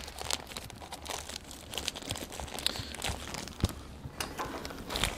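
Plastic hot-dog package crinkling and rustling as it is opened by hand, with scattered light clicks and taps.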